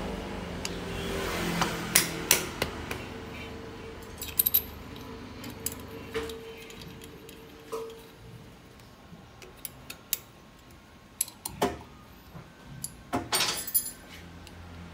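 Metal clicks and clinks of a scooter clutch shoe assembly being handled and seated in a lathe chuck: scattered sharp taps, grouped in short runs a few seconds apart, with a faint steady hum under the first half.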